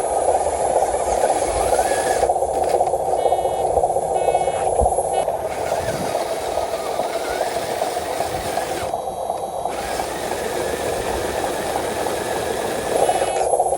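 Radio-controlled model truck's electric motor and gears whirring steadily.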